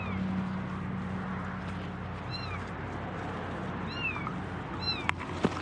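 A tiny kitten crying in distress: four short, high-pitched meows spaced a second or two apart, over a steady low hum. Two sharp clicks near the end.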